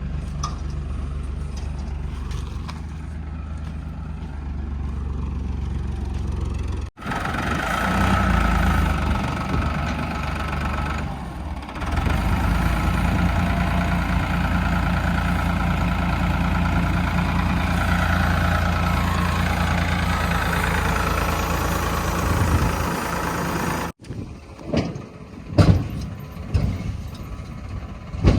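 Heavy diesel engines of a backhoe loader and a dump truck running at work. The engine sound breaks off abruptly twice and comes back at a different level, and near the end there are several irregular sharp knocks.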